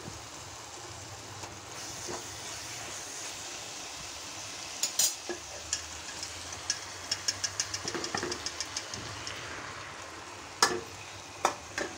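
Onion-tomato masala sizzling in a nonstick kadhai as boiled fusilli pasta is tipped in. There are quick light clicks about halfway through and a sharper knock near the end.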